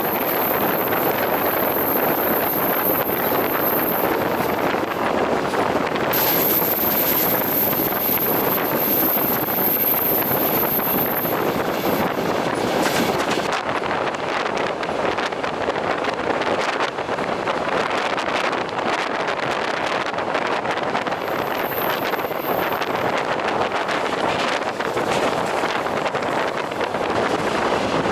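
Moving passenger train: a steady rumble and rush of air, with the clatter of the wheels over the rail joints.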